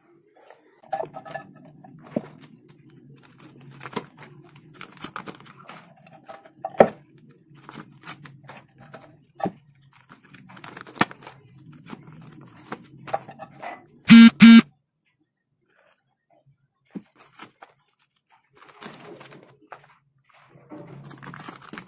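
Paper banknotes rustling and crinkling as hands pull them out of an opened tin money bank, with scattered clicks and knocks. About two-thirds of the way through, two short, loud horn honks.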